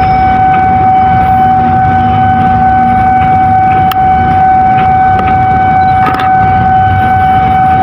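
Passenger train rolling into the station: a loud, steady high tone held without a break over the low rumble of the moving train.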